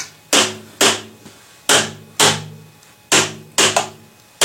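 A hammer strikes the joints of a PVC pipe rack about seven times, mostly in quick pairs, each blow sharp with a brief hollow ring. The blows drive the PVC pipes into their fittings to seat them.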